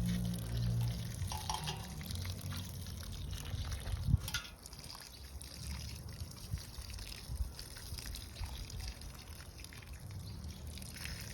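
Water pouring and trickling, with a single sharp knock about four seconds in.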